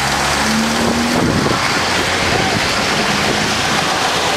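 Steady wind rushing over the microphone.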